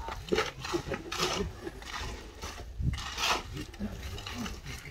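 Shovels scraping through concrete mix being turned by hand on the ground: several short scrapes, the strongest about three seconds in, over a low rumble.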